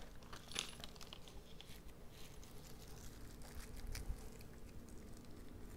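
Faint rustling and light clicks of small hardware and plastic caps being handled in a plastic packet, a few soft clicks around the middle, over a low steady hum.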